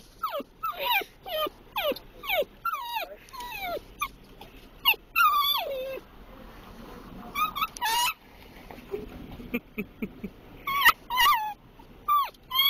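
Dachshund whining and whimpering in short, high cries that each fall in pitch, two or three a second, coming in runs with pauses of a second or two between them. It is eager whining for a treat, worse the closer they get.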